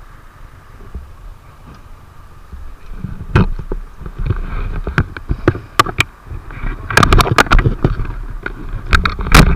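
Handling noise from a helmet-mounted camera: a run of sharp knocks and bumps starting about three seconds in, as the camera is jostled and moved about, with the loudest knock near the end.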